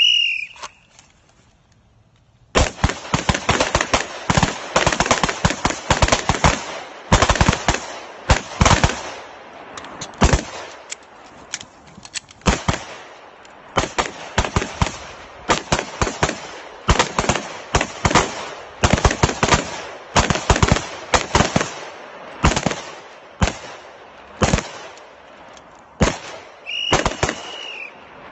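A short high beep, then, about two and a half seconds later, gunfire: strings of shots in quick succession with brief pauses between them, lasting about 25 seconds, with another short high beep near the end.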